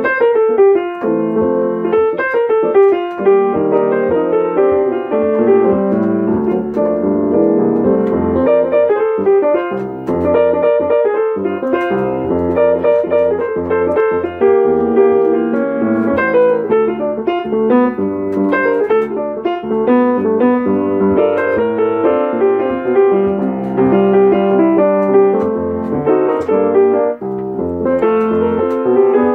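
Solo jazz piano on an acoustic grand piano: a continuous flow of single-note melody lines over chords.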